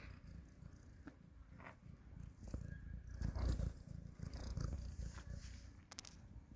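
A cat purring close up, a low pulsing rumble that grows louder in the middle.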